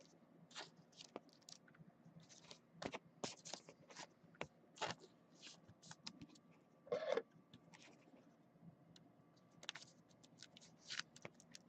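Trading cards and plastic card sleeves being handled: faint, scattered scrapes, rustles and clicks, with a louder swish about seven seconds in.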